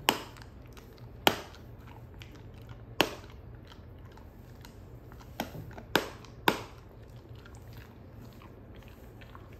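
Wolfdog crunching a hard, stick-shaped chicken-liver dog treat, the chew too hard for easy biting. Six sharp cracks come at uneven gaps, three of them close together near the middle, with fainter chewing clicks between.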